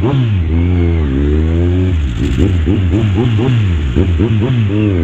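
Kawasaki Z1000's inline-four engine revving up and down through traffic. The pitch drops and climbs again about a second in, then comes a run of quick throttle rises and falls.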